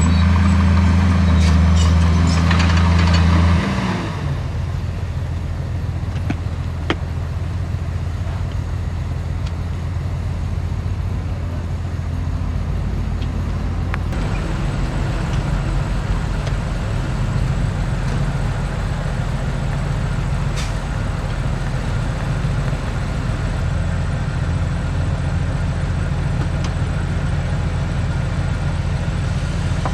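Heavy construction machine's diesel engine running steadily. It is louder for the first few seconds, then drops to a lower, even running sound, with a few faint clicks.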